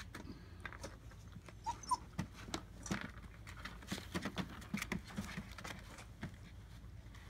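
German Shepherd puppies playing and scuffling in a plastic kiddie pool: scattered clicks and taps of paws and toys on the plastic, with a couple of short high squeaks about two seconds in.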